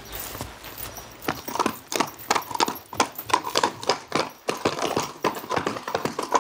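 A horse walking, its hooves clip-clopping several times a second, starting about a second in.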